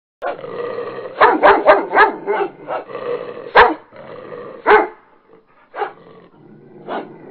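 A dog barking repeatedly: a quick run of four barks a little after a second in, then single barks about a second apart.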